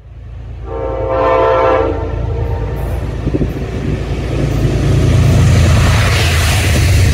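Amtrak P32AC-DM locomotive sounding its horn in one blast of a little over a second as it approaches. Then the low rumble of the locomotive and the train running past the platform, growing louder near the end.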